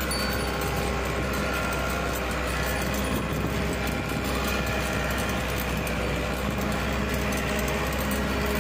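Steady engine hum and road noise heard from inside the cab of a vehicle as it drives along.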